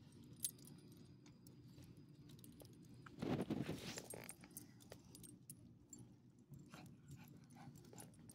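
Small dogs' collar tags jingling and clicking faintly as the leashed dogs move about, over a low steady background rumble. A louder brief noise comes about three seconds in.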